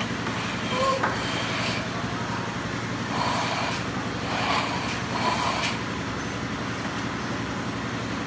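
Steel trowel scraping and smoothing wet cement render on a wall in several short strokes, over a steady engine-like background hum.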